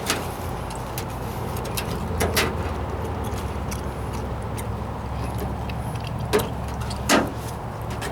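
A steady low mechanical hum with a few sharp knocks scattered through it.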